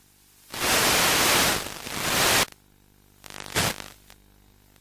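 Static hiss from an analog FPV video receiver's audio channel: a loud, even white-noise rush about half a second in that lasts about two seconds and cuts off suddenly, then a shorter burst of static just after three and a half seconds, over a faint steady hum. The static is the sign of the weak 10 mW video link fading out as the wing banks hard.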